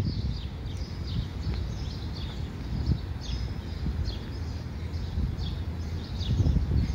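Birds chirping: many short falling chirps, several a second, over a steady low rumble on the microphone.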